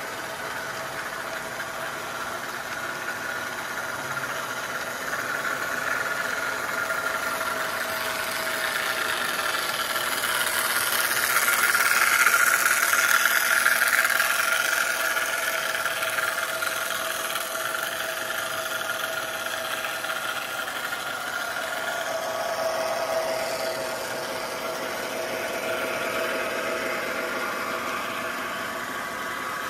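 Toy trains running on three-rail O-gauge track, including a Lionel 3927 track cleaning car: a steady electric-motor whine and wheel rumble, growing louder as the train passes close about twelve seconds in, then easing off.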